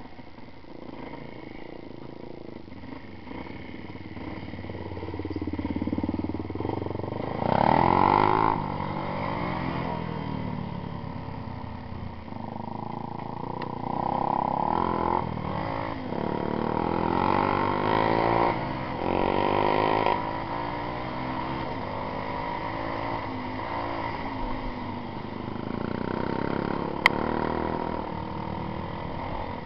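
Dirt bike engine under way on a rough track, its pitch rising and falling with the throttle in several surges. A single sharp click comes near the end.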